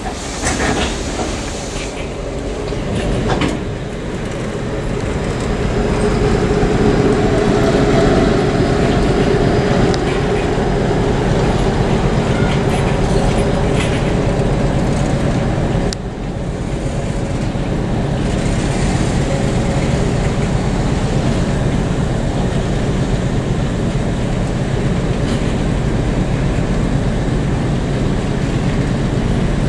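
Passenger coaches of a long-distance train rolling steadily past on the rails: a continuous rumble of wheels on track, with a few sharp knocks.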